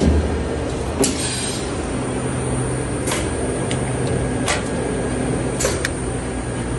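Extrusion blow moulding machine running: a steady hum with short, sharp hisses and clacks every second or two.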